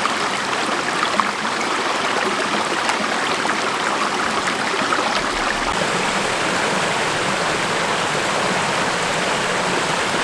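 Steady, even rush of water cascading over a waterfall.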